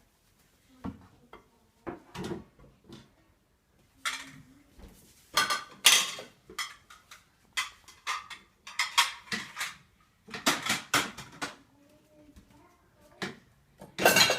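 Dishes and silverware clinking and clattering as a dishwasher is unloaded, with a few scattered knocks at first and a busy run of rattling from about four seconds in.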